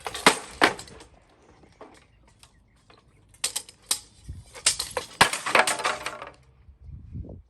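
Sledgehammer blows smashing a broken Chamberlain garage door opener, its plastic case and metal parts cracking and clattering apart. A couple of hits come right at the start, then a longer run of heavy blows and breaking about halfway through.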